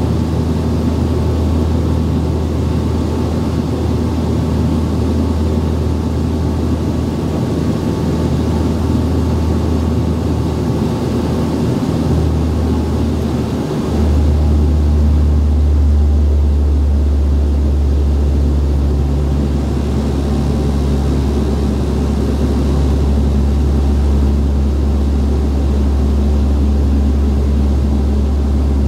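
Inside the cabin of a Dash 8-Q300 climbing after take-off, its Pratt & Whitney Canada PW123 turboprops and propellers make a steady low drone. About fourteen seconds in, the low tones shift and the drone gets a little louder.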